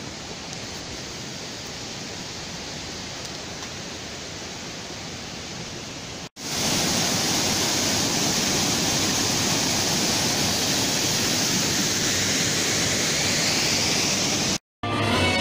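A softer steady rushing, then after a cut about six seconds in, a waterfall's water pouring down over rock, loud and steady. Music starts right at the end.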